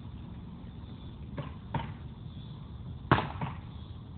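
Hard knocks of a long-handled tool striking a bowling ball on the ground, in two quick pairs: one pair about a second and a half in, then a louder pair about three seconds in.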